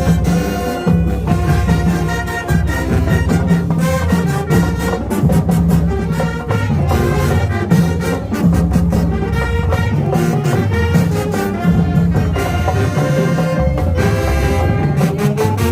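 High school marching band playing loud brass over drums, a steady beat driving the tune.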